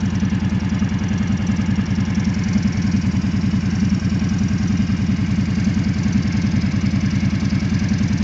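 Kawasaki ATV engine idling steadily while standing still, an even low pulsing putter with no revving.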